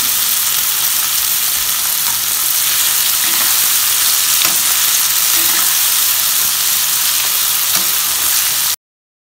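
Steamed cluster beans sizzling steadily in hot oil in a kadai as a steel spatula stirs them, with a few faint scrapes; the water left in the steamed pieces is being fried off. The sizzle stops abruptly near the end.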